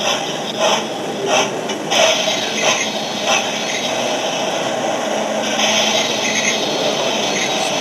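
Recorded steam-locomotive sounds from a Hornby Duke of Gloucester model's TTS sound decoder: steady exhaust chuffs, about three every two seconds, stop a little over three seconds in and give way to a steady hiss.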